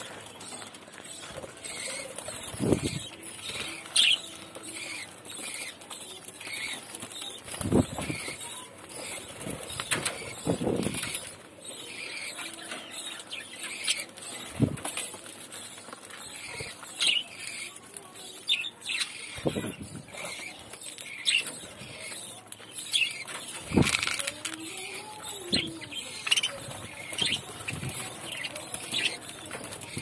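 Budgerigars feeding at a pile of celery and leafy greens: wings flapping several times, mixed with short high chirps and a steady patter of small clicks and rustles from pecking at the greens.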